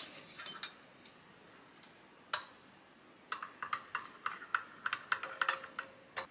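A metal spoon clinking and scraping against a ceramic dish while stirring instant yeast into a dry mix: a few light taps, a single clink, then from about three seconds in a quick run of clicks, about five a second.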